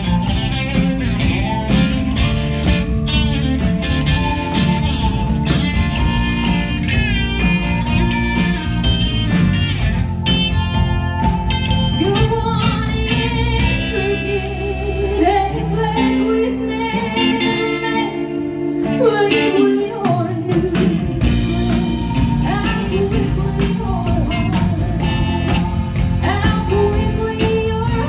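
Live band playing a country-rock song on acoustic guitar, electric guitar, bass guitar and drums, with long, bending lead-guitar notes in the middle.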